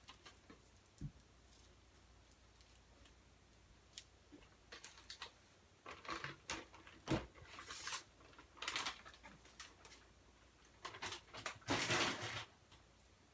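Light clicks and rustling from handling a plastic bag of frozen chicken nuggets and putting nuggets into a pan, with louder spells of rustling and clatter midway and near the end.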